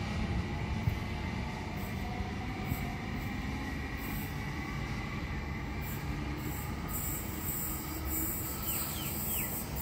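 Sydney Trains Waratah electric train running away from the platform, a steady rumble of motors and wheels on the rails. A high-pitched wheel squeal joins in over the second half.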